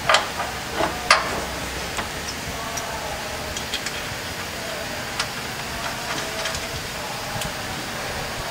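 Metal clinks and ticks of bolts and nuts being handled against a galvanized steel snowplow mounting bracket, with two sharper clanks about a second apart near the start and lighter ticks after, over a steady background hiss.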